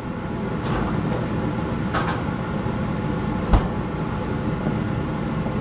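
Refrigerator being opened and an opened evaporated-milk can put inside, with light knocks and one sharp thump about three and a half seconds in, over a steady hum.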